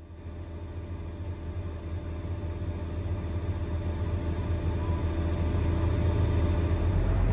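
Diesel engine of a piece of farm harvest machinery running steadily, getting gradually louder.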